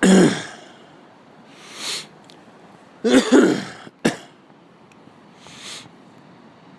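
A man coughing twice, once at the start and again about three seconds in, with breathy inhales between. He has the sniffles from the cold.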